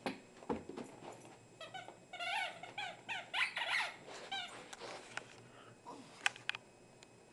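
A Pekingese chewing a squeaky toy cow, setting off a rapid run of short squeaks that starts about one and a half seconds in and lasts about three seconds. A few sharp clicks follow near the end.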